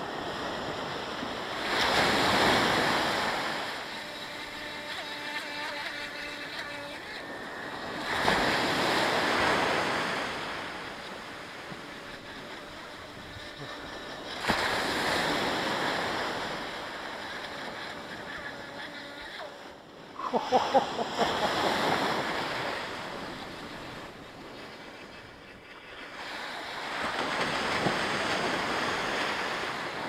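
Small sea waves breaking and washing up a sandy beach, in slow surges about every six seconds.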